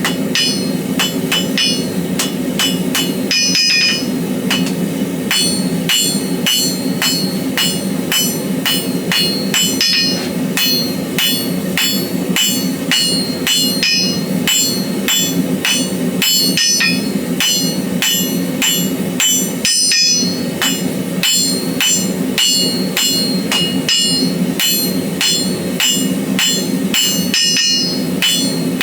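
Hand hammer striking hot steel on an anvil in a steady run of blows, about two to three a second, each one ringing, while a BBQ fork is forged. A steady low hum runs underneath.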